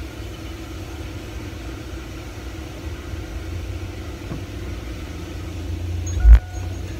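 Pickup truck's engine idling, a steady low rumble heard inside the cab, with one loud thump about six seconds in.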